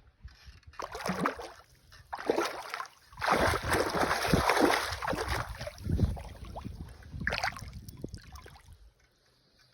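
Water splashing and sloshing in irregular bursts as a hooked brown trout thrashes on a tight line. The longest and loudest splashing comes a little past the middle, and it goes quiet near the end.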